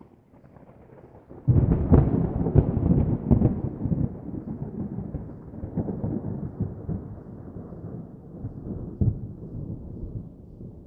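Fireworks going off: a sudden volley of bangs and crackles about a second and a half in, then a rolling rumble that slowly fades, with a few more single bangs.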